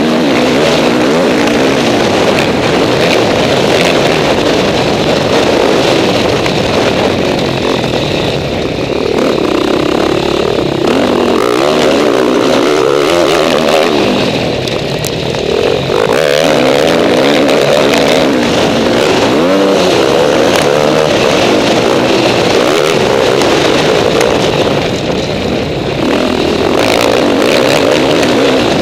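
KTM 450 SX-F four-stroke single-cylinder motocross engine heard from on board under race riding, revving hard and falling back over and over through gear changes and corners. The engine note briefly drops off a few times before pulling up again.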